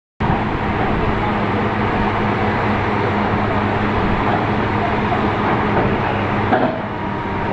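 Bored-pile drilling rig running steadily, its diesel engine giving a constant low hum under a broad mechanical noise. The sound cuts in just after the start and dips slightly near the end.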